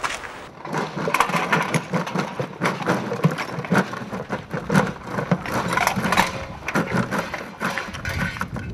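Scrap debris (metal pieces, cans, rubble) clattering onto gritty pavement as a bucket of it is tipped out: a dense run of irregular knocks and rattles starting about half a second in.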